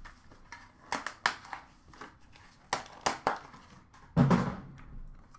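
A cardboard trading-card box and its packaging being handled and opened by hand: a series of sharp clicks and taps, then a louder thud with a brief scrape about four seconds in.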